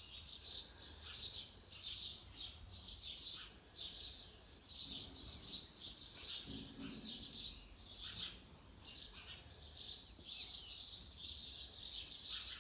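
Small birds chirping continuously in a rapid, high-pitched chorus.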